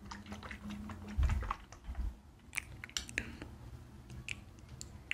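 Close-miked ASMR sounds: scattered soft, wet clicks and taps right at the microphone, with a dull low thump about a second in.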